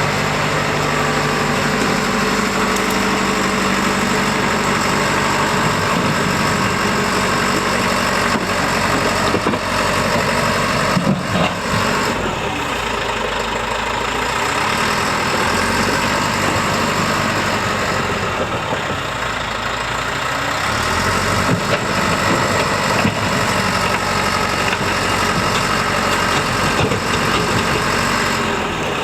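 Bulldozer engine running steadily, its pitch sagging and recovering a couple of times in the middle.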